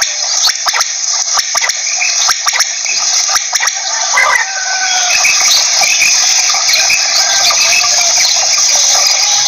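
Common quail calling: a fast run of short, sharp call notes.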